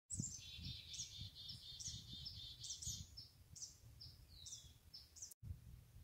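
Songbirds singing: a rapid run of high, repeated down-slurred notes for about three seconds, then a few separate whistled notes, over a low rumble. The sound cuts out briefly a little after five seconds.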